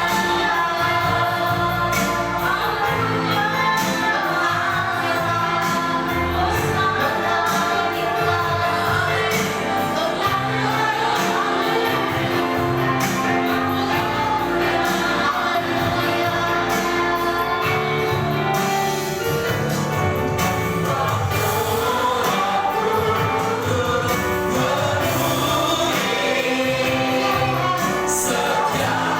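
Live gospel worship music: a group of voices singing together over a band, with drums keeping a steady beat.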